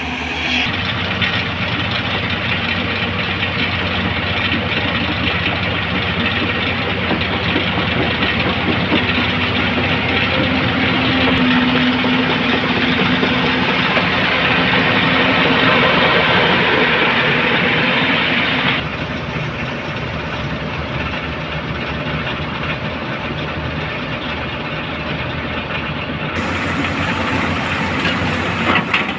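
Diesel engine of a JCB backhoe loader running steadily. It drops abruptly to a quieter, duller run about nineteen seconds in.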